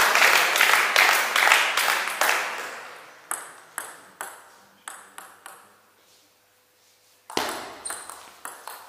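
Table tennis ball clicking off the table and rackets in an echoing hall. First comes a noisy stretch that fades over the first few seconds, then a few bounces and a short lull. A sudden sharp hit about seven seconds in starts a rally of quick clicks.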